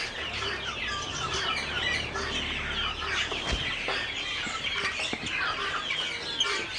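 Many small parrots in an aviary chattering together: a dense, unbroken mix of short chirps and squeaks.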